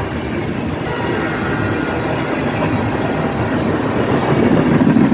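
Norfolk Southern freight train passing at speed: a steady rumble and rattle of wheels and cars on the rails, growing louder near the end.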